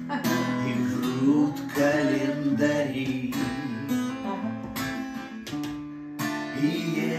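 Acoustic guitar strumming slow chords, one stroke about every second and a half, letting the chord ring with a brief drop in loudness about six seconds in before the next strum.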